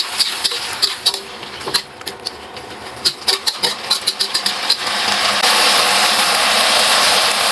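Spatula clicking and scraping against a pan while stirring. About five seconds in, a loud, steady sizzle of food frying in hot oil takes over.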